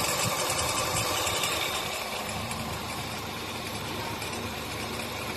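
Nissan Teana engine idling with a steady abnormal noise. The noise comes from a worn one-way clutch pulley on the alternator.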